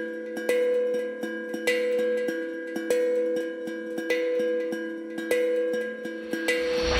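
Background music: a held synth chord over a light metallic tap, a little under two taps a second, swelling near the end.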